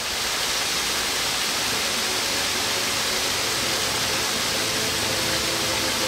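Waterfall: a steady, loud rush of falling water. From about halfway through, faint sustained music notes come in underneath.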